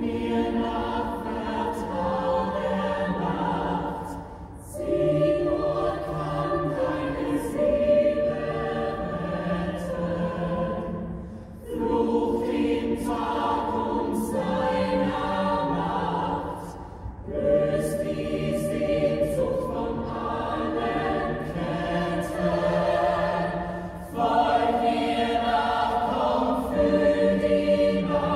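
Musical-theatre ensemble chorus singing in long held chords. The phrases break off and start again about every five to six seconds.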